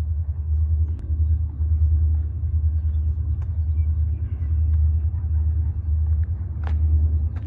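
Wind buffeting the microphone: a low, gusting rumble that swells and drops unevenly throughout.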